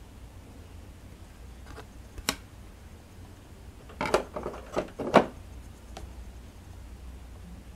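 Plastic bottom cover of a Jaguar 592 portable sewing machine being fitted back into place by hand: one click about two seconds in, then a quick run of clacks and knocks about four to five seconds in, the loudest near the end of the run.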